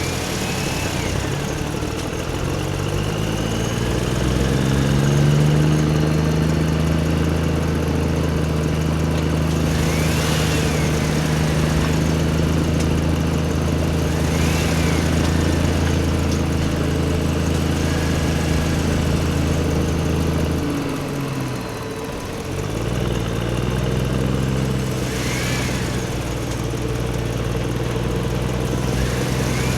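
Engine sound of a remote-control construction toy running steadily. It climbs in pitch over the first few seconds, drops away about two-thirds of the way through and builds up again. Short rising-and-falling whines come every few seconds.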